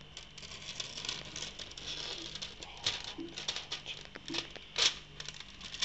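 Thin clear plastic film being peeled off a plastic ready-meal tray, crinkling and crackling in quick irregular snaps, with two louder crackles about three seconds in and near the end.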